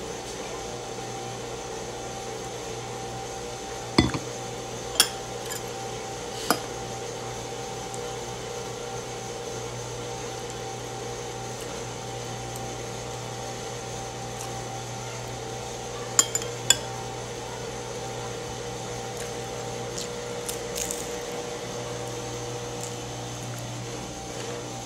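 Tableware clinking at a meal: a stemmed wine glass and a fork against a ceramic noodle bowl, a few sharp clinks, three of them between about four and six and a half seconds in and a quick pair around sixteen seconds, over a steady background hum.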